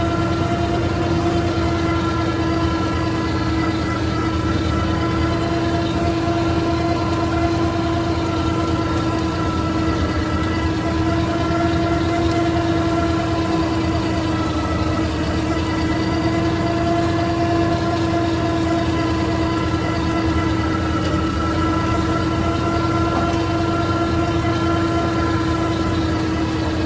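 IMT 533 tractor's three-cylinder diesel engine running steadily under load, driving a Panex AGM 155 cm flail mulcher that is cutting grass. A steady droning whine sits over the engine noise.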